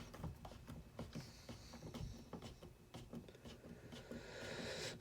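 Faint, scattered light clicks and taps of small tools and parts being handled.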